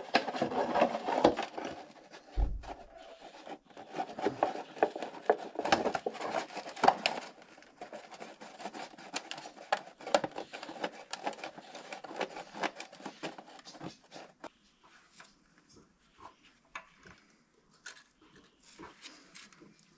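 Handling noise from a plastic catch container rubbing and crinkling under a tractor engine's fuel sediment bowl, with small clicks and taps as the bowl is undone. It is dense for the first seven seconds, with one low thump about two and a half seconds in, then sparser and quieter.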